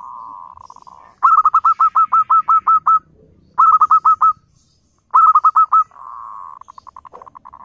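Zebra dove (perkutut) singing. A soft purring trill opens the song, then come three runs of loud, quick coo notes, about six a second, with short pauses between the runs, and a soft trill again near the end.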